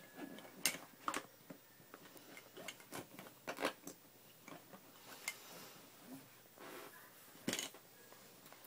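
Scattered light clicks and taps of hard plastic baby toys being handled and knocked together, with a few sharper knocks.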